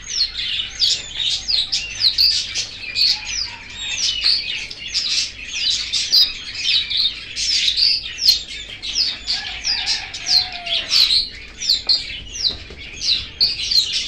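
Many small caged birds chirping busily: short, high, overlapping calls that go on without a break.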